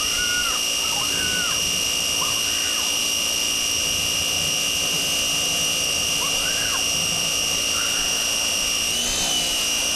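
Pressure washer running steadily with a high-pitched whine over a rushing hiss of spraying water, its pitch wavering briefly about nine seconds in.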